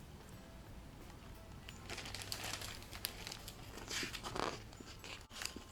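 Faint paper rustling and light handling clicks as a picture book's pages are turned, with two soft rustles about two and four seconds in.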